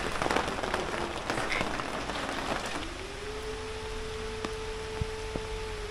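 Air-raid siren wailing: one tone rises about three seconds in and then holds steady, sounding an air-raid alert. Before it comes a dense crackling patter.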